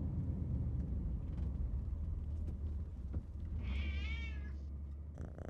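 A cat meows once, a drawn-out call about a second long that wavers in pitch, coming about three and a half seconds in. The cat is unhappy at riding in the car. Under it runs the steady low rumble of the car.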